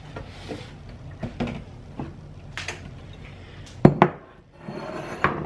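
Kitchen bowls and a whisk knocking lightly on a countertop as they are moved. About four seconds in come two sharp, louder knocks close together as a glass mixing bowl is set down on the counter.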